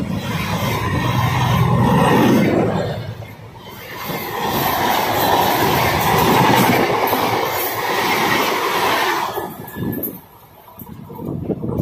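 Passenger train coaches passing close by at speed, their wheels running over the rails in a loud, steady rush. The sound dips briefly about three seconds in, then fades near the end as the train moves away.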